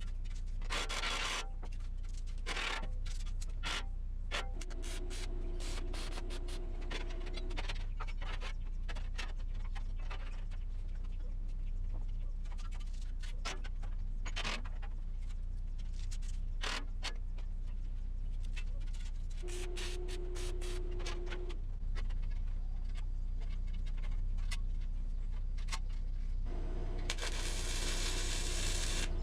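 Workshop fabrication sounds: scattered scrapes and knocks over a steady low hum. A short steady whine comes twice, and a rougher, denser noise starts near the end.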